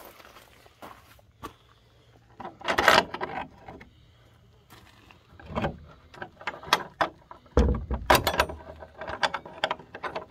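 Wooden plank door of a stone hut, with an iron latch, being worked open: a series of clunks, knocks and scrapes, loudest about three seconds in and again about eight seconds in.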